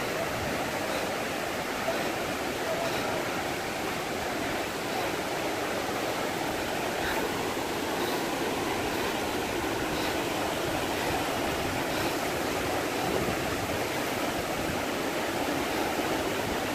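Steady rushing of a large, muddy mountain river in spate, its water churning over rapids.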